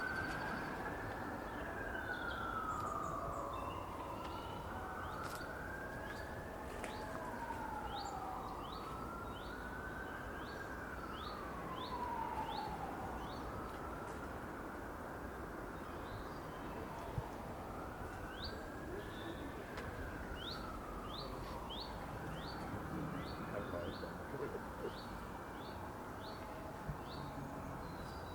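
A distant emergency-vehicle siren wails, slowly rising and falling over a steady low hum of city traffic. It fades out about halfway through and returns for a few more cycles. A bird gives long runs of short, evenly repeated high chirps.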